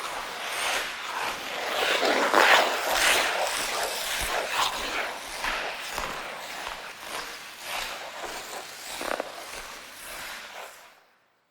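Ice skate blades scraping and carving across ice in uneven, repeated strokes, tapering off and stopping near the end.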